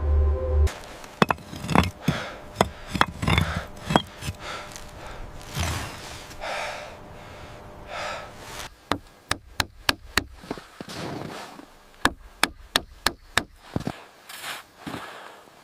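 Hand tool striking wood: irregular sharp knocks with scraping in between, then quick runs of about four or five taps a second, once in the middle and again later. A low droning sound cuts off just after the start.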